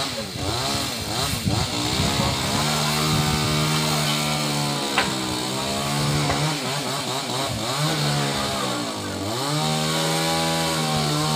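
Chainsaw running at high revs. Its pitch sags and recovers several times, about two, six and nine seconds in, as if bogging under load.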